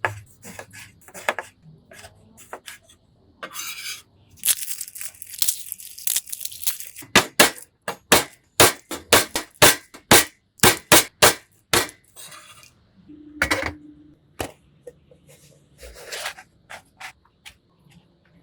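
Kitchen food-preparation sounds: scattered knocks, a few seconds of rustling, then a quick run of about fourteen sharp knocks, roughly two or three a second, and a brief clink of a dish.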